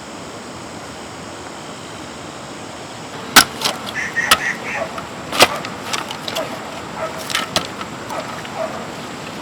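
A steady hiss, then from about three seconds in a string of sharp knocks and clicks, irregularly spaced, the two loudest about two seconds apart.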